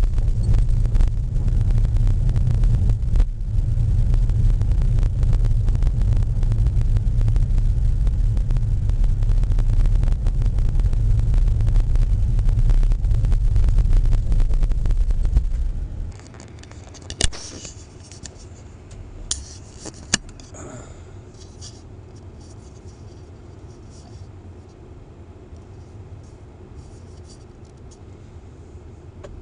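Car driving slowly on a rough forest road, heard from a dashcam inside the cabin: a steady low rumble of road and engine noise. About halfway through it cuts off suddenly to a much quieter steady background with the car standing still, and a few sharp clicks.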